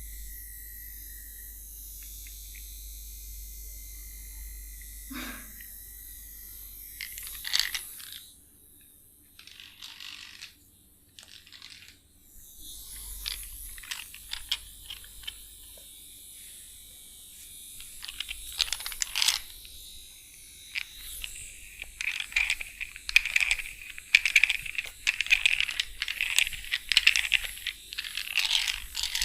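Close-miked massage sounds: hands rubbing and crackling against hair and skin in short scattered strokes, turning into a fast, dense run of crisp crackles over the last several seconds.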